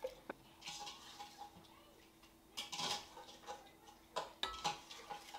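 A small metal cup clinking and scraping against a glass flour canister, a scattered series of light clinks with short ringing, busiest about two and a half to three seconds in and again near the end.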